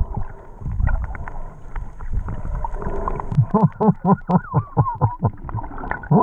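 Low wind and water rumble with scattered knocks at first. From about halfway, a person laughs in quick, even bursts, about five a second, with a brief high squeal.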